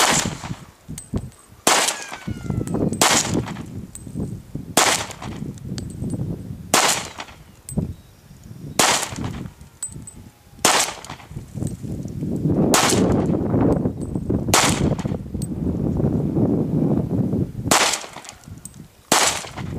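Glock 22C .40-caliber pistol fired in slow, deliberate single shots: about eleven sharp cracks, one every two seconds or so.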